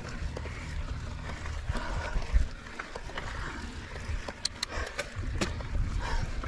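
Mountain bike riding over a dirt trail, heard from a helmet or bike-mounted action camera: a steady low rumble of wind and tyre noise on the microphone, with a short run of sharp clicks about four and a half to five and a half seconds in.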